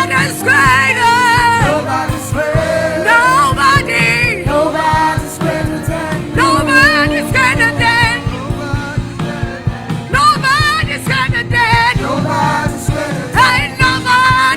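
Gospel music: a singer's voice with strong vibrato over a band with bass and a steady beat.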